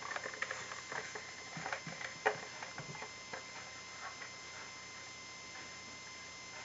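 Small plastic toys clicking and tapping against the plastic shelves of a toy fridge as they are set in place, with one sharper click a little over two seconds in; the clicks die away after about three and a half seconds.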